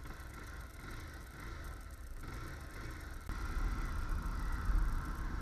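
Motorcycle running on the road while being ridden: a steady low rumble that grows louder about three seconds in.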